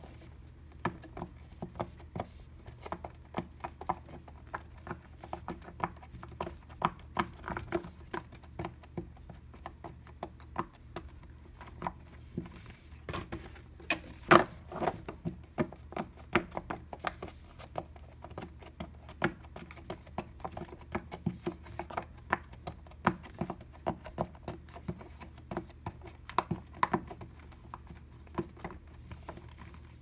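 Fingers pressing the bubbles of a silicone pop-it fidget toy: an irregular run of short pops, several a second, with one louder pop about halfway through.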